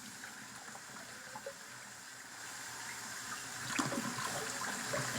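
Faint trickling of running water, with scattered light ticks and clinks that grow busier in the second half.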